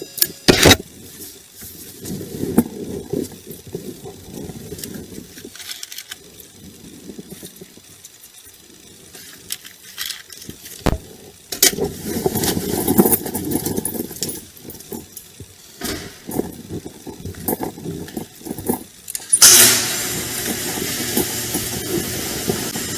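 Scattered knocks, clicks and rustling, then about three-quarters of the way through a car engine starts and keeps running steadily.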